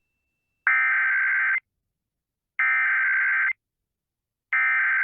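Emergency Alert System SAME header: three identical bursts of raspy digital data tones, each just under a second long with about a second of silence between, the coded header that opens a Child Abduction Emergency (AMBER Alert) broadcast.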